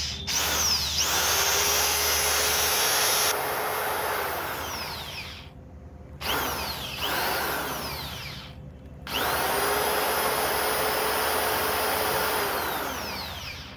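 Planet Power EID-700 RV 700 W corded drill motor running in three short runs, each spinning up to a steady whine and winding down when the trigger is let go. The motor runs fine but the chuck does not turn, which the repairer suspects is a damaged gear.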